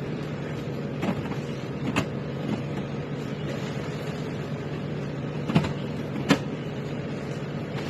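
A steady machine hum with four sharp knocks, two close together near the start and two more later on: soda cans clunking as they are loaded into a vending machine.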